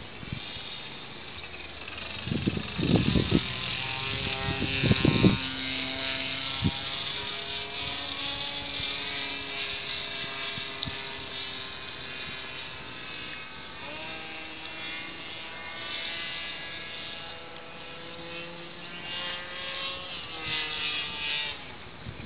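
Radio-controlled model airplane's motor buzzing in flight, its pitch drifting up and down as it passes overhead and the throttle changes. Two short bursts of low rumble a few seconds in.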